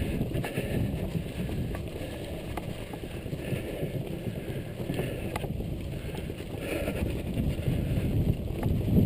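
Mountain bike tyres rolling over a wooden plank boardwalk, a steady fast-grained rumble from the boards, with wind on the microphone and a few light clicks.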